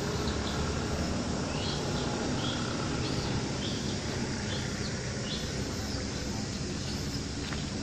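Steady outdoor background noise with a low traffic-like rumble, and several short high chirps from a small animal or bird in the first half.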